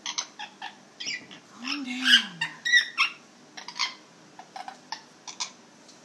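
Amazon parrot making a run of short, sharp chirps, clicks and squawks, loudest about two seconds in.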